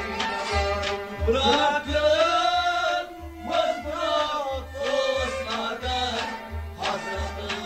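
Kashmiri Sufi song: a male voice sings a gliding, held melody over a steady low drum beat, about two strokes a second.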